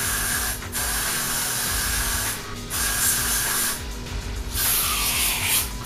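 Got2b freeze hairspray hissing from an aerosol can in four long bursts, each a second or more, with short breaks between, as it is sprayed into the base of the hair.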